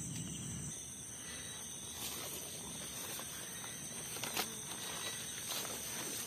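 Night insects, crickets among them, keeping up a steady high-pitched chorus, with a few soft knocks and rustles from walking through the vegetation.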